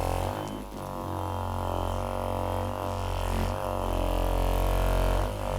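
Massage gun's motor buzzing steadily as it works on the back, its pitch dipping briefly several times as it is pressed in.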